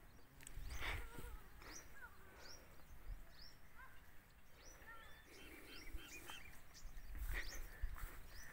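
Outdoor nature sound: small birds chirping with many short, high, falling notes, and an insect buzzing. Low rumbles come about a second in and again near the end.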